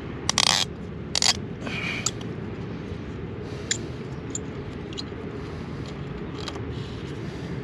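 Gloved hand handling the wires inside a small in-ground electrical junction box. There are three short scrapes in the first two seconds, then a few light clicks, over a steady low rumble in the background.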